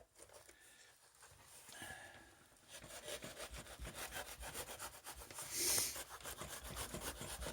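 A knife sawing through a parcel's packaging: quiet scraping at first, then quick, even back-and-forth strokes from about three seconds in, with one louder rasp about two-thirds of the way through.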